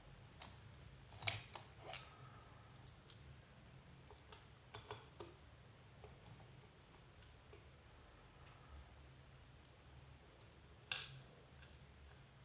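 Faint, scattered clicks and taps of small metal tools and screws being worked while the screws holding a circuit board in a radio repeater are tightened, with two sharper clicks, about a second in and near the end.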